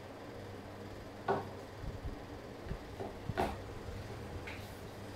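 Light knocks and clatter of a stirring stick and plastic tub being handled on a tabletop while slime is mixed. The two louder knocks come about a second and three and a half seconds in, over a low steady hum.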